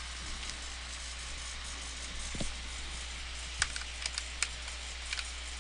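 A few faint, short clicks and taps in the second half, over a steady low hum and hiss.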